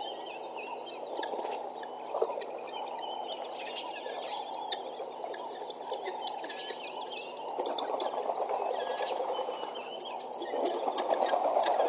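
A flock of helmeted guineafowl calling, with many short, high chirping notes overlapping, over a steady rushing noise that grows louder about ten seconds in.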